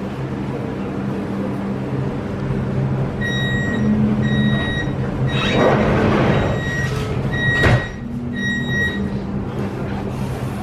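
Metro train door-closing warning: a run of short high beeps while the doors slide shut, ending in a sharp thump as they close, over the steady low hum of the train standing at the platform.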